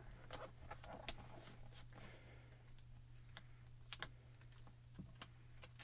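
Scattered light clicks and taps of fingers and fingernails on the clear acrylic door of a MISTI stamp positioner as a clear photopolymer stamp is placed, over a faint steady hum.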